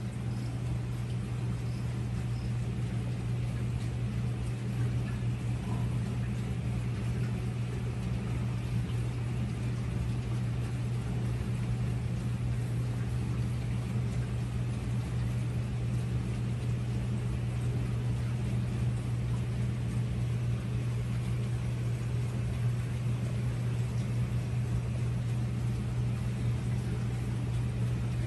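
Aquarium air pump humming steadily, with air stones bubbling in the tank.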